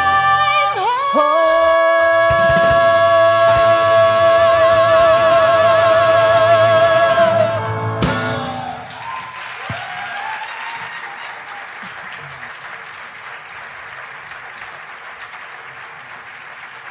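A woman and a man hold the last note of a musical-theatre duet together over grand piano and drum kit. The song ends with a sharp band hit about eight seconds in, and audience applause follows and slowly fades.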